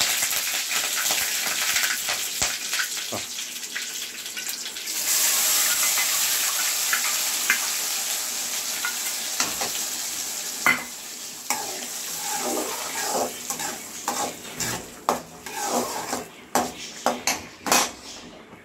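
Hot oil sizzling in a pan as a ground onion, tomato and green chilli paste goes in, the sizzle swelling about five seconds in and then slowly fading. In the second half a spoon clinks and scrapes against the pan as the paste is stirred.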